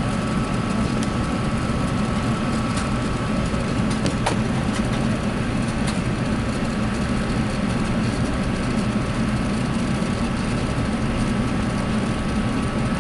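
Cabin noise of an Airbus A380 with its Rolls-Royce Trent 900 engines at idle while taxiing: a steady rumble with a thin, even whine over it. A light click sounds about four seconds in.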